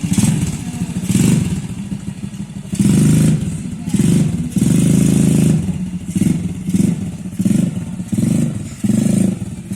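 Small ATV engine revving in short, repeated surges as the throttle is opened and let off, with the pitch rising and falling in each surge.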